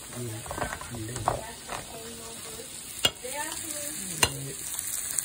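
Chopped onions frying in butter in a pan, a steady sizzle with small crackles. Two sharp taps about three and four seconds in as eggs are cracked against the pan's rim.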